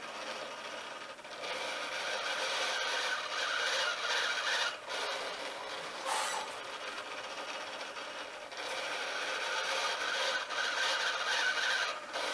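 Large model-boat sail-winch servo driving the arm of a homemade ventilator as it squeezes and releases a bag-valve-mask (Ambu bag) at a slow breathing rate. The servo runs in two long spells of about three and a half seconds each, with a short burst between them.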